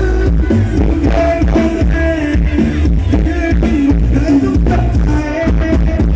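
A Thai procession sound truck (rot hae) sound system playing loud music during a sound check: a singing voice over heavy bass.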